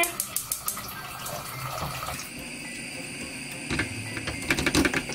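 Seaweed and oysters in soy sauce hissing wetly in a wok as the gas flame heats it, stirred with a wooden spatula. The spatula knocks against the pan several times near the end, and a steady high whine comes in about two seconds in.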